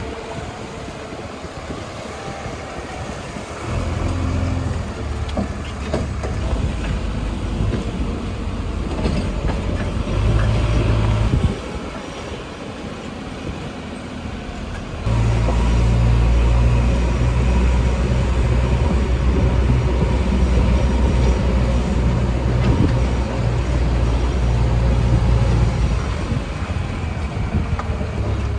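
JCB 3DX backhoe loader's diesel engine running under work. It grows louder a few seconds in, drops back about halfway through, then steps up sharply and holds loud to the end.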